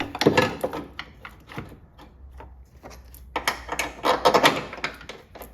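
Irregular clicks and knocks of metal parts being handled as a new engine mount (torque strut) is fitted into place, with a busier burst of clatter about three and a half seconds in.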